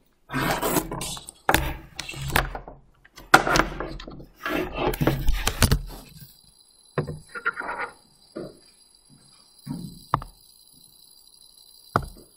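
Handling noise from a Windows tablet-laptop being moved and repositioned close to its built-in microphone: rubbing, knocking and clatter for about six seconds. After that come a few scattered thumps and clicks, with a sharp knock near the end, over a faint steady high whine.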